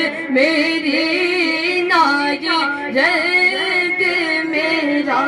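A young man singing a naat solo into a microphone: a high, ornamented vocal line with long held notes that waver and glide in pitch.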